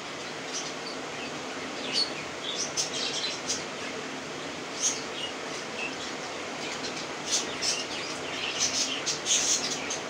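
Budgerigars chattering in short, high chirps that come in irregular clusters and grow busier near the end, over a steady low background hum.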